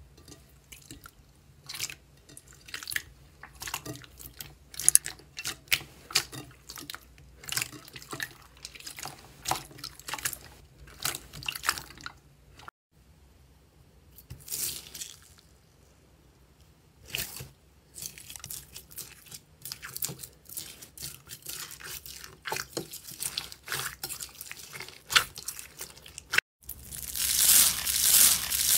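Hands squishing slime in a bowl. There is a run of wet clicks and pops from a clear slime, then sparser squelches and clicks from a bowl of tiny jelly beads. Near the end comes a loud, dense crackling as a foam-bead slime (floam) is pressed.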